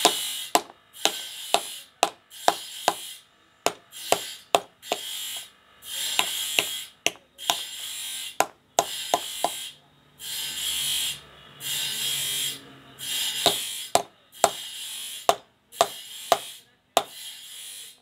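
Hand hammer striking metal fasteners into a sawmill's flat drive belt on a wooden plank: sharp, irregular taps, some of them ringing briefly. Between the taps come repeated bursts of a high hissing buzz, each about a second long.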